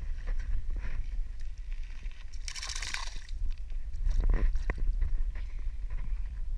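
A bass released back into shallow pond water: a short splash and slosh about two and a half seconds in. A steady low rumble of handling noise runs under it, with a few soft knocks near the end.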